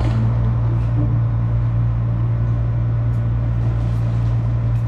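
Steady low drone of a ship's running machinery, a constant deep hum with an even wash of noise over it. A few faint ticks come in near the end.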